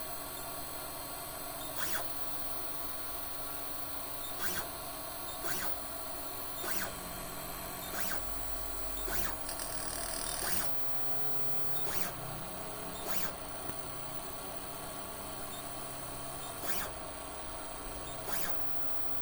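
3D printer with a drill mounted on it, running: a steady hum carries on while short, sharp motor moves come every one to two seconds, about a dozen in all.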